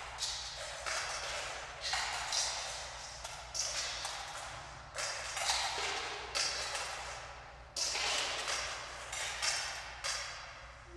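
Coins dropped one at a time into a steel pot and a small metal pail, each landing with a bright metallic clink that rings on and fades, about one a second.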